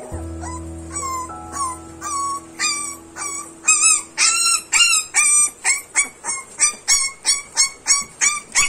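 Young puppy crying in a string of short, high-pitched yelps and whines, about two a second, growing louder a few seconds in.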